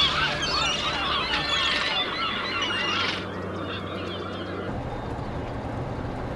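A flock of gulls calling, many overlapping squawks, cutting off abruptly about three seconds in. Then a low steady drone of a car's engine heard from inside the cabin.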